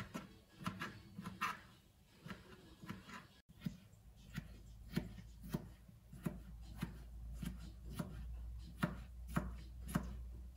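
Kitchen knife dicing a cucumber on a cutting board, a run of sharp knocks about two a second.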